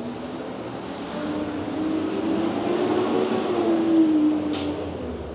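Street traffic: a motor vehicle drives past, its engine hum and tyre noise swelling to a peak about three to four seconds in and then fading, the engine tone dipping in pitch as it goes by. A brief hiss sounds near the end.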